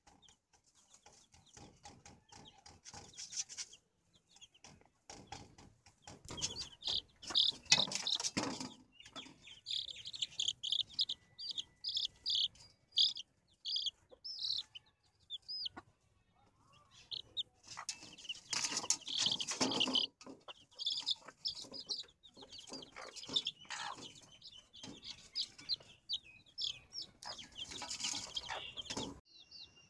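Chicks peeping in runs of short high chirps, about two or three a second, while feeding on grain with a hen that clucks. Several louder noisy bursts come in between.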